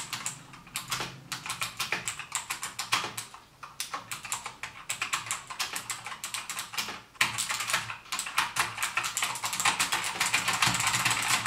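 Typing on a Cooler Master MS120 keyboard's clicky mem-chanical switches: steady clicking at a normal pace, then from about seven seconds in, faster, denser key-mashing.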